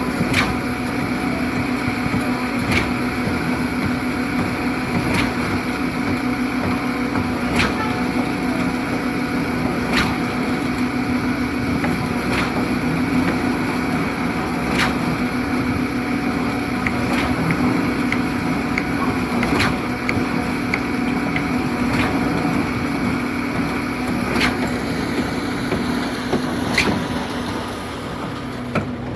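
Concrete mixer pump running steadily under a strong hum, with a sharp knock about every two and a half seconds, typical of the pump switching between its pumping strokes.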